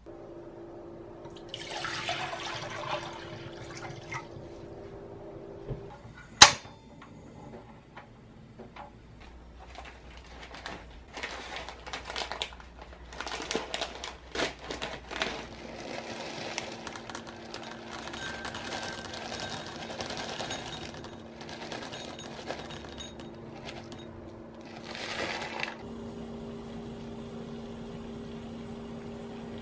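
Water poured into a stainless steel saucepan, then a single sharp click about six seconds in. A plastic bag of frozen black tapioca pearls crinkles for several seconds, and near the end water boils steadily in the saucepan on a portable gas stove.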